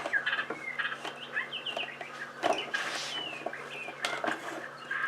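Birds chirping in the background, many short chirps, several falling in pitch, over a steady low hum, with a few faint knocks.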